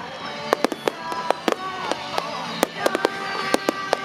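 Fireworks bursting: a rapid, irregular string of sharp bangs and crackles, a dozen or more in four seconds, with pitched tones sounding between them.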